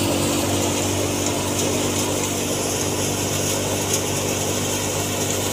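Tractor engine running at a steady speed, driving a drum thresher that whirs and rattles as canola stalks are fed through it to separate the seed. A few sharp clicks.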